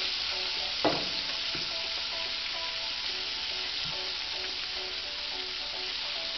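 Breaded pork chop frying in hot oil in a cast-iron skillet: a steady, busy sizzle, with one sharp knock about a second in.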